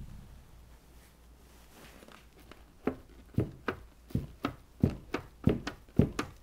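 Footsteps on a hard floor: a quick run of sharp steps, about three a second, starting about three seconds in.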